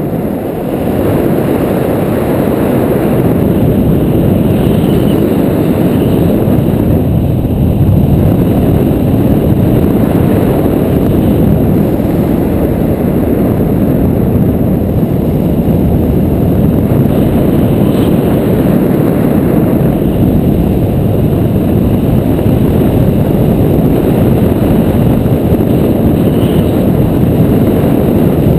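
Wind noise from the airflow of paraglider flight buffeting the microphone of a pole-mounted action camera: a loud, steady, low rushing sound that grows louder about a second in.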